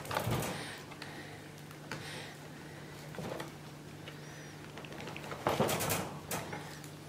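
A red fox shifting about in a wire crate: scattered rustling and light knocks as its paws and splinted foreleg move on the plastic floor mat and towel, with a louder flurry about two-thirds of the way through. A steady low hum runs underneath.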